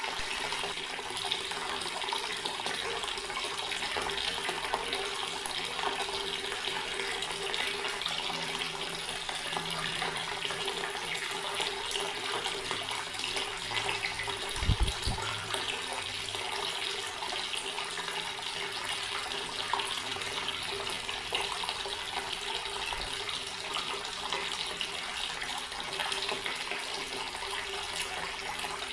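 Water tap running steadily, an even rush and splash of falling water. A brief low thump comes about halfway through.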